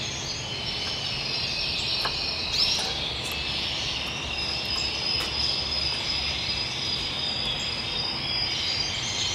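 Canaries singing: a continuous stream of high trills and whistles, with one long held high note in the middle.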